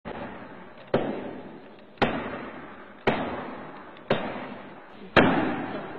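Heavy impacts, evenly spaced about one a second, six in all, each followed by a long echoing decay.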